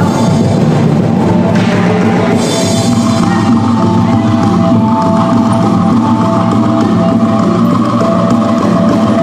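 Ethnic dance music played on drums and percussion, with several sustained ringing notes above the drumming.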